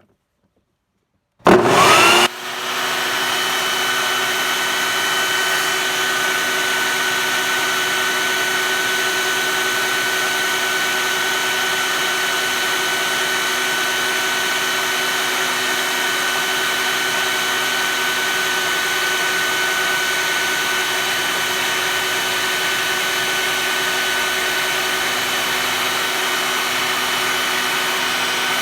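Air raid siren being tested: it starts abruptly about a second and a half in with a brief loud burst and a quick rise in pitch, then holds one steady, unchanging tone.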